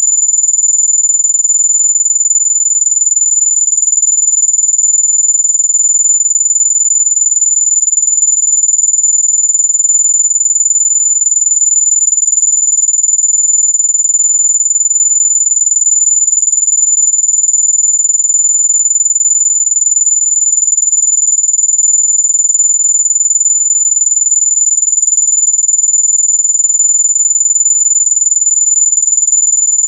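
Electronic mosquito-repellent tone: a single steady, high-pitched pure tone held unbroken, in the audible range rather than true ultrasound.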